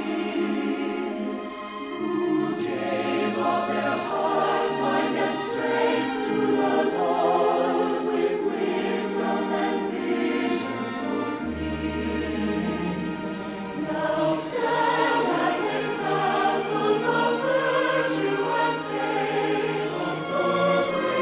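Choir singing a hymn with orchestral accompaniment.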